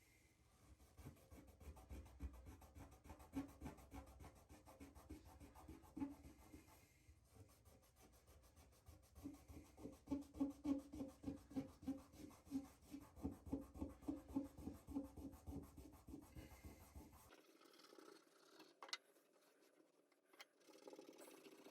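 Heavy-duty scouring pad scrubbing rust off a metal drain part in quick back-and-forth strokes, about two to three a second, loudest in the second half. The scrubbing stops abruptly about three-quarters of the way through, leaving only faint handling sounds.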